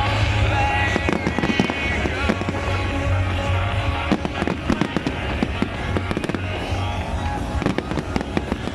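Fireworks going off in quick succession, sharp bangs and crackling, over music playing loudly. Partway through, a long rising whistle climbs for about two seconds.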